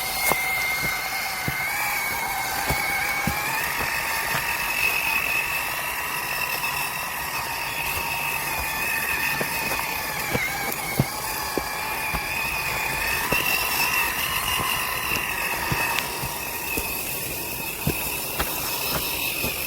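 Small RC crawler's electric motor and gearbox whining steadily as it drives, the pitch wavering slightly as the load changes, with scattered small clicks.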